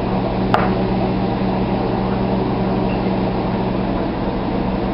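Steady mechanical hum of a running kitchen appliance, with one sharp click about half a second in.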